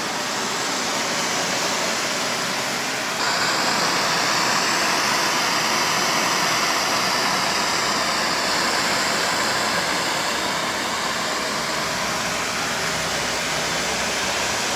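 Hand-held propane and MAPP gas torches burning with a steady hiss of gas and flame, preheating cast axle knuckles before welding. The hiss gets a little louder about three seconds in.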